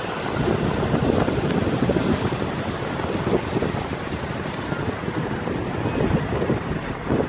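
Wind buffeting the microphone in an open-sided aerial tram gondola as it travels along the cable: a steady low rush with fluttering gusts.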